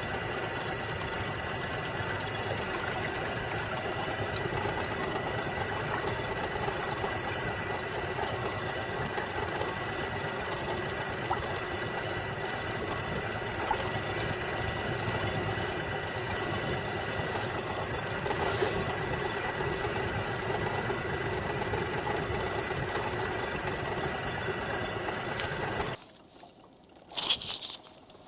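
A boat motor running steadily, with a constant high whine over its hum, that cuts off suddenly near the end. A short loud clatter follows.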